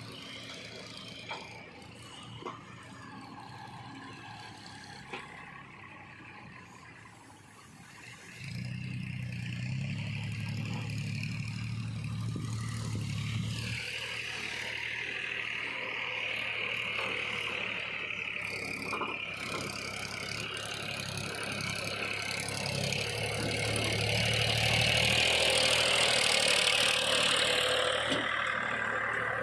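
Heavy diesel machinery engine running, with a few sharp knocks at first. About eight seconds in it revs up hard and stays loaded, and a high whine builds over it, loudest near the end.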